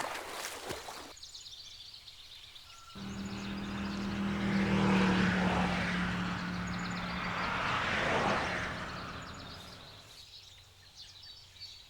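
An engine passing by: a steady low hum comes in about three seconds in, swells and peaks, then fades away near the end.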